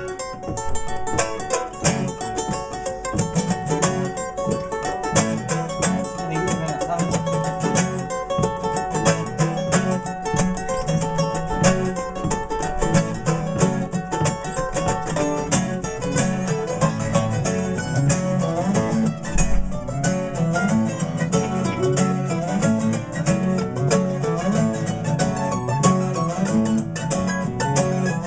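Live acoustic folk music without vocals: a nylon-string classical guitar and a steel-string acoustic guitar picking and strumming together, with a mandolin.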